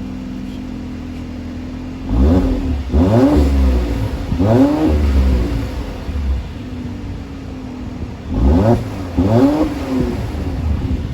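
Mercedes-AMG C43's twin-turbo V6 on its stock exhaust, idling, then revved in short blips: three in quick succession about two seconds in, and two more near the end, each rising and falling back to idle.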